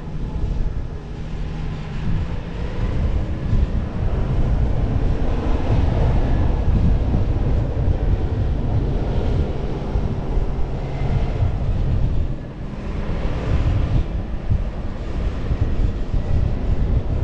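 Toyota Land Cruiser 70-series (LC71) on the move: a steady engine-and-road rumble with wind buffeting the microphone. The sound eases briefly about twelve seconds in.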